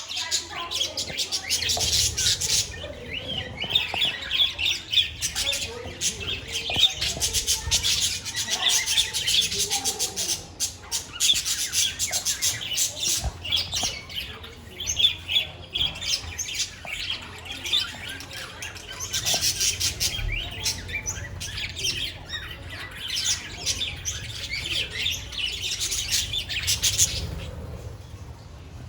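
A flock of budgerigars chattering and chirping continuously, a dense, rapid mix of many birds' calls, with a few brief lulls.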